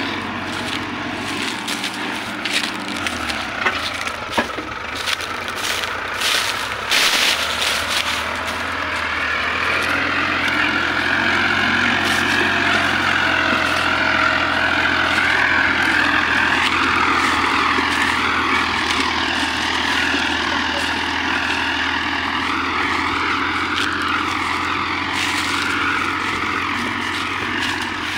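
Farmtrac 60 tractor's diesel engine pulling a heavily loaded trolley, running steadily under load and growing louder about ten seconds in. A scatter of sharp clicks and knocks comes in the first eight seconds.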